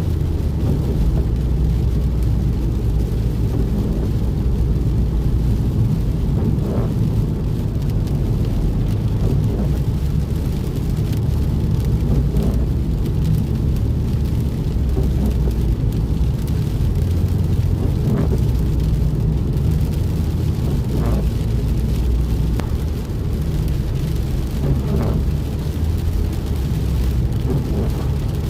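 Rainstorm: a steady low rumble with a fainter hiss of rain above it.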